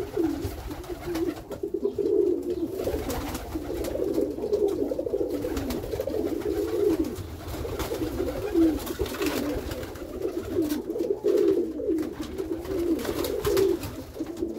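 Domestic pigeons cooing, several birds overlapping in an unbroken low warbling.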